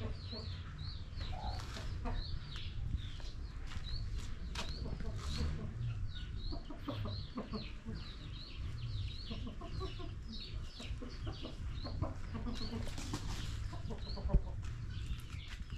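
Chickens clucking, with a long run of short, high calls in quick succession and a single sharp knock about fourteen seconds in.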